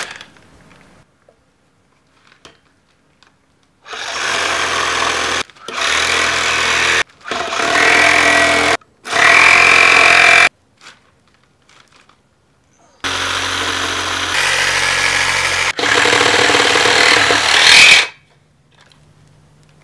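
Reciprocating saw with a metal-cutting blade cutting into the braided steel bead of a car tire on an aluminium rim. It runs in six bursts of one to three seconds each, with a short pause after the fourth.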